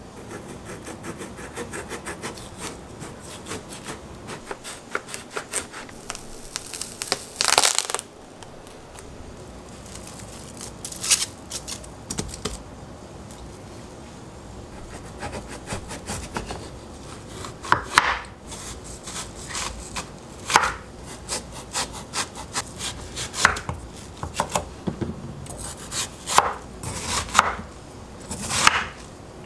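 Chef's knife cutting through a large watermelon on a bamboo cutting board: a series of crunching strokes through the rind and flesh, the loudest about a quarter of the way in, and quicker strokes near the end.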